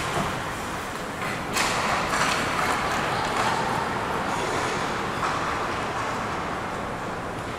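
Ice hockey play: skate blades scraping and carving the ice and sticks clattering, with a sharp knock at the start as two players meet along the boards and glass.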